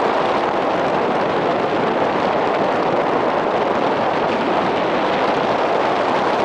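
Steady rushing of wind over the camera microphone in paraglider flight, an even noise with no engine tone in it.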